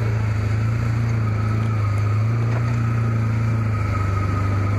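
Can-Am Commander side-by-side's V-twin engine running at a steady speed while driving, a constant low drone with a thin high whine held above it.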